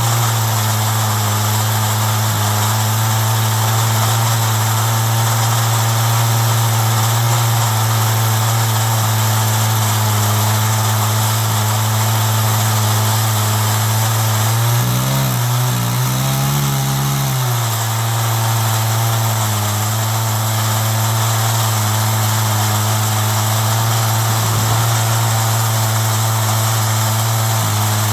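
Two-stroke chainsaw running hard and steady under load, ripping lengthwise through a walnut log in an Alaskan mill. Its pitch wavers and dips for a couple of seconds about halfway through, then settles again.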